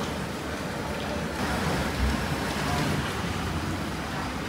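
Steady background noise like road traffic, a continuous rumble and hiss, swelling slightly about two seconds in.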